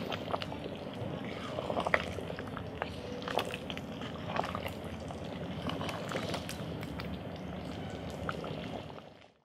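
Pork thongba stew boiling in a pot: a steady bubbling with frequent small pops. It fades out near the end.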